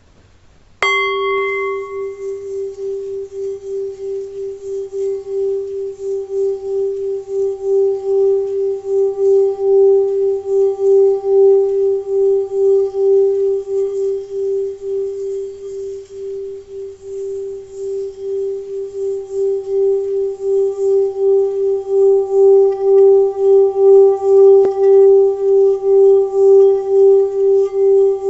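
Tibetan bell struck once about a second in, then ringing on in one deep steady tone with a regular pulsing waver. The tone does not fade and swells louder again in the last third.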